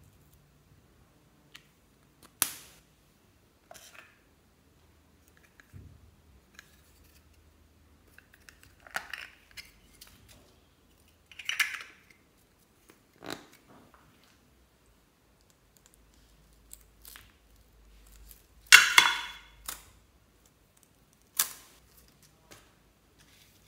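Hands handling small plastic containers and toys: scattered sharp clicks and taps, with short crinkly rustles. The loudest is a crackle of plastic about 19 seconds in.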